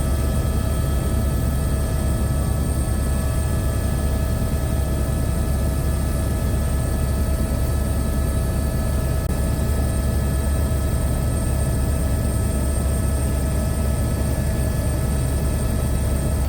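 Steady aircraft engine drone: a heavy low rumble with several constant whining tones over it, unchanging throughout.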